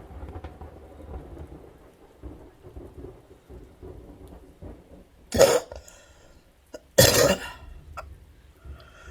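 Low rumble of thunder with rain, then two loud, sharp coughs about a second and a half apart in the second half.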